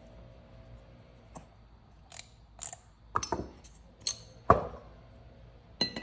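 Sharp metallic clicks and clinks of a Sea-Doo RAVE exhaust valve being prised apart by hand with a pick: its small metal parts knock and ring against each other. They are faint at first, get louder from about three seconds in, and the loudest knock comes about four and a half seconds in.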